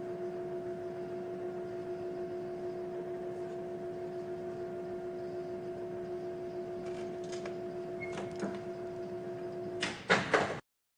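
Electric chain hoist motor running with a steady hum as it lowers a crucible on its lifter into an induction furnace, then stopping about ten seconds in with a few metallic clanks of the chain and hook.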